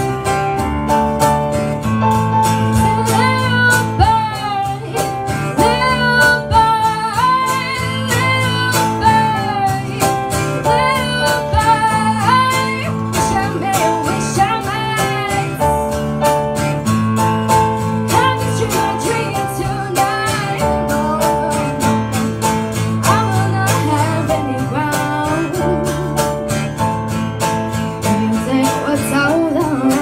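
Acoustic guitar and electric keyboard playing a song live. A melody line slides between notes over the chords through much of the first half.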